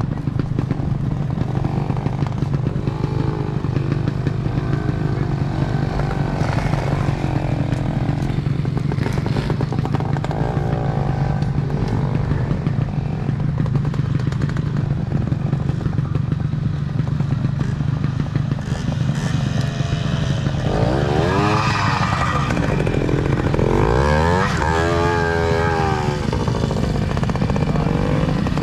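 Classic twinshock trials motorcycle engines running at low revs, steady and chugging, with the throttle blipped so the engine note sweeps up and down several times in the last third.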